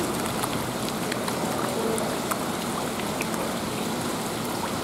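Small horse mackerel (aji), 10 to 15 cm live bait fish, splashing at the water surface as they swarm and feed on mysid shrimp in a scoop. It is a steady patter of many small splashes and drips.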